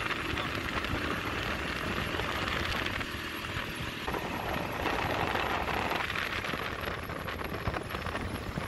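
Steady engine drone and rushing wind of a moving open-sided auto-rickshaw, heard from on board. The wind noise swells for a couple of seconds midway.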